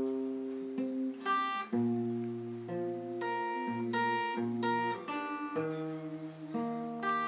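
Yamaha cutaway acoustic guitar with a capo, played solo: a run of plucked notes and chords ringing over deeper bass notes, the song's instrumental introduction before the voice comes in.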